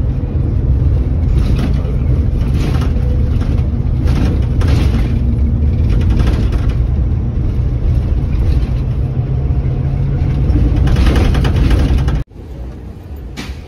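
Steady low engine and road rumble heard from inside a vehicle cabin. It stops abruptly about twelve seconds in, giving way to a quieter steady rumble.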